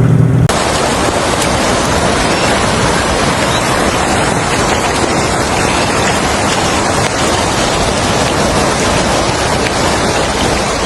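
A steady, even rushing noise of water that starts suddenly about half a second in and holds level throughout.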